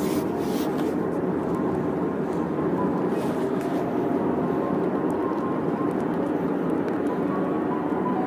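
Steady road and engine noise inside a moving car's cabin, with faint piano music from the car radio underneath.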